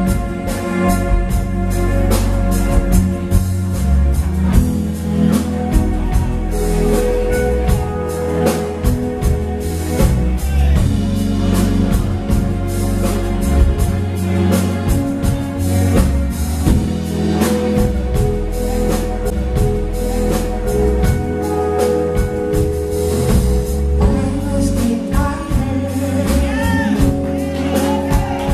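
A live band plays a steady groove: a moving bass line, a drum kit, and keyboard and guitar chords, with singing voices over it.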